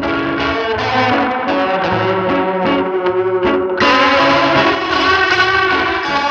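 Music: guitar played through effects and distortion over a stepping bass line. About four seconds in it turns fuller and brighter.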